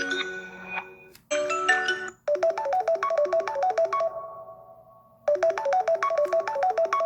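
Samsung Galaxy S21 Ultra built-in ringtones: one melody fades out, a short burst of notes is cut off about two seconds in, then a new ringtone starts, a quick phrase of rapid bright notes lasting about two seconds that rings out and repeats a little over five seconds in.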